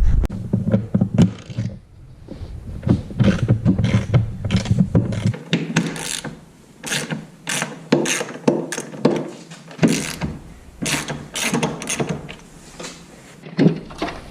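Hand ratchet wrench clicking in repeated quick runs of strokes, working mounting bolts on a bench vise.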